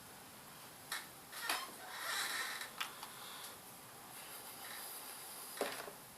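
Light handling noises from a small laptop cooling fan being oiled: a few separate clicks and a short scraping rustle.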